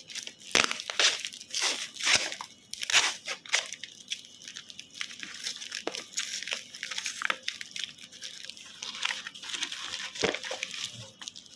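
Plastic delivery packaging being torn open and crinkled by hand: a string of sharp rips and crackles for the first few seconds, then finer, steadier crinkling.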